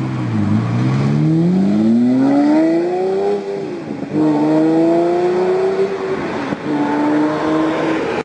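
Lamborghini Murcielago's 6.2-litre V12 accelerating hard as the car pulls away. The engine note rises steadily in pitch, drops sharply at an upshift about four seconds in, climbs again, then drops at a second upshift and holds steady near the end.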